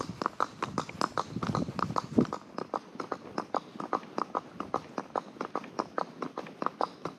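Horse's hooves at a walk, a steady even clip-clop of about four hoofbeats a second, with one louder thud a little over two seconds in.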